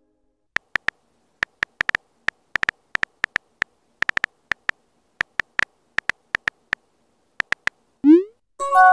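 Phone on-screen keyboard key-press clicks, irregular taps of someone typing a message. Near the end comes a short rising electronic blip, then a brief electronic tone.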